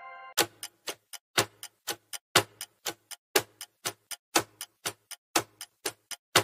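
Ticking-clock countdown sound effect: even tick-tock clicks at about four a second, alternating loud and soft, after the fading tail of a chime at the very start.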